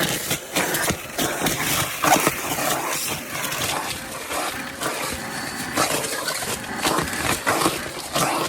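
Milwaukee vacuum running while it sucks up broken window glass, the shards clicking and rattling through the nozzle over a steady rush of air.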